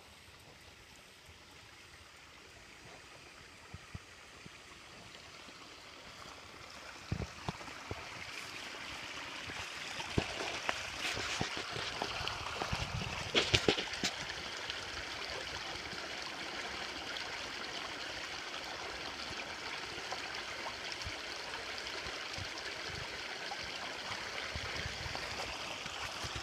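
Small creek trickling and flowing, growing louder over the first ten seconds, then steady. A few sharp knocks and rustles come about halfway through.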